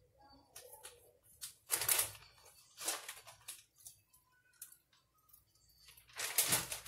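A clear plastic bag crinkling and rustling in bursts as it is handled and opened. The loudest stretch comes near the end.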